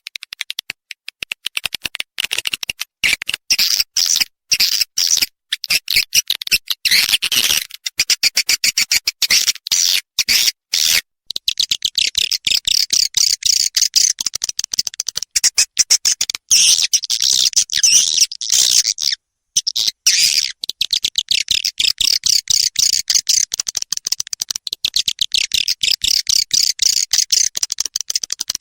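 Recorded edible-nest swiftlet calls played as a swiftlet-house lure sound: a dense run of fast, high-pitched chirps and twitters, broken by brief pauses.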